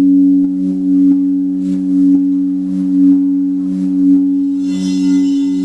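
Singing bowls ringing, two steady low tones that swell and pulse about once a second, with a brighter shimmer of high overtones coming in near the end.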